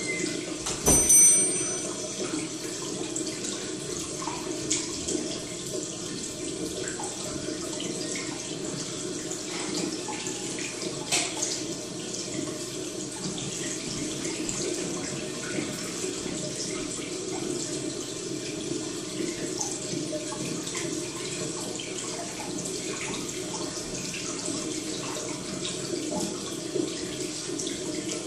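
Steady running-water noise, like a trickling tap or filter, with small scattered ticks through it. A brief loud sound comes about a second in.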